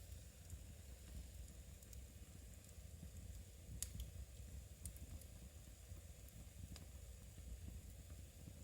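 Faint crackling of a wood fire in a fireplace over a low steady rumble, with a few sharp pops, the loudest about four seconds in.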